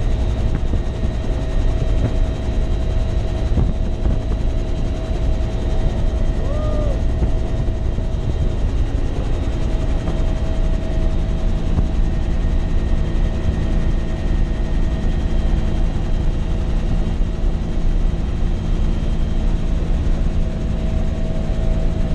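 Military helicopter in flight, its engine and rotor running steadily and loudly, heard from inside the cabin with the side door open.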